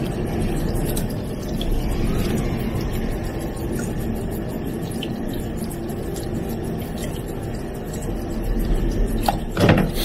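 Kitchen tap running into a bowl of water in a steel sink, splashing over hands as they peel the skin off a young cuttlefish in the stream. Steady throughout, briefly louder near the end.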